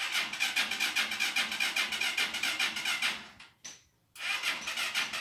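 Honda TMX 125 Alpha's single-cylinder engine cranking over at an even pulse of about six a second without catching. It stops after about three seconds and starts cranking again a second later: a hard-starting engine that will not fire.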